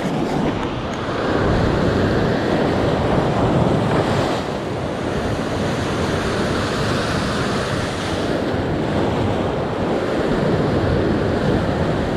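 Sea surf breaking and washing over a rocky shoreline close by, swelling louder twice as bigger waves come in.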